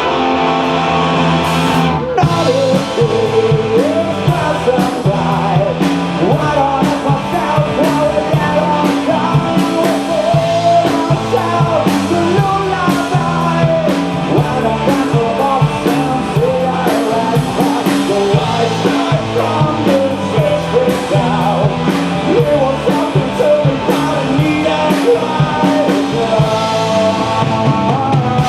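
Rock band playing live: electric guitar, bass and drum kit, with a wavering lead melody over them. The drums and full band come in about two seconds in, after a guitar-only opening.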